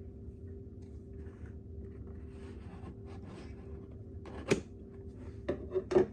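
Cardboard box being opened and handled: soft rubbing and scraping of cardboard, with a sharp knock about four and a half seconds in and a few clacks near the end. A steady low hum runs underneath.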